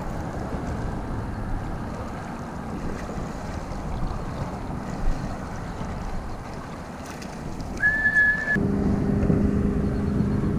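Wind rushing over the microphone with a steady low rumble. Near the end a brief high tone sounds, then a steady engine-like hum cuts in abruptly.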